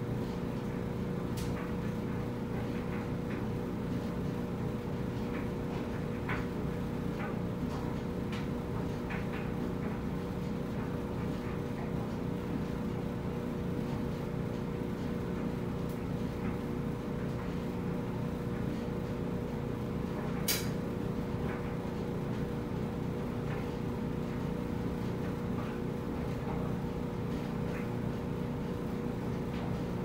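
Front-loading clothes dryer running with a load of laundry tumbling in the drum: a steady low rumble with an even hum. Light taps and clicks come scattered through it, with one sharper click about twenty seconds in.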